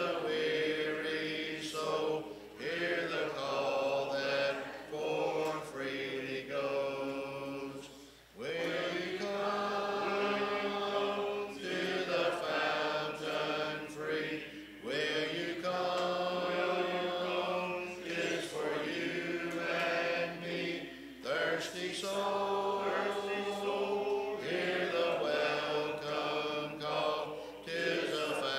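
A church congregation singing a hymn together, unaccompanied, in long held phrases, with a short breath pause about eight seconds in.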